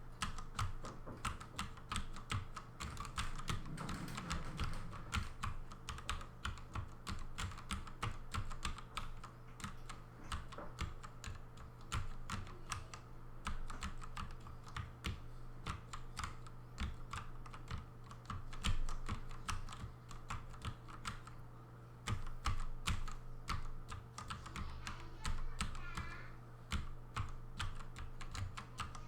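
Redragon K552 mechanical keyboard with light 15 g springs and flat 3D-printed keycaps, struck in rapid stenographic chords: many keys pressed together and released, giving fast, irregular clusters of clacks at about 127 words per minute.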